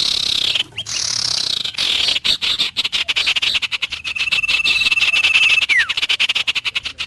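Dense, high, pulsing chorus of calling frogs. About four seconds in, a bird whistles one level note for nearly two seconds, ending in a quick downward slide.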